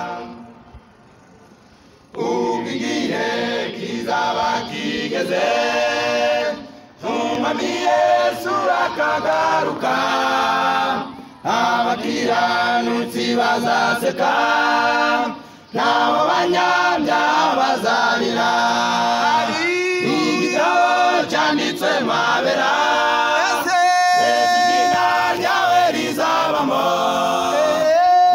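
A choir singing in parts, starting after about two seconds of quiet, with short breaks between phrases.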